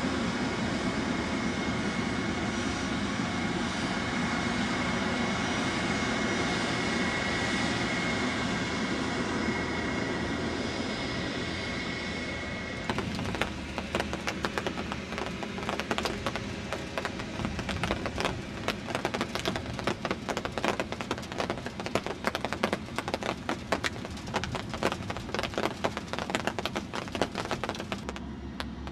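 A Boeing 747 Classic's four jet engines at takeoff thrust: a steady noise with a high whine. About 13 seconds in, the sound changes abruptly to a rougher, choppier noise full of sharp crackles.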